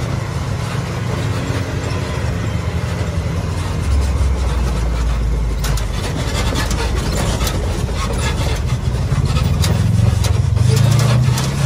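Side-by-side UTV engine running on a trail ride. From about six seconds in there is a run of sharp knocks and clatters, and near the end the engine pulls harder and gets louder.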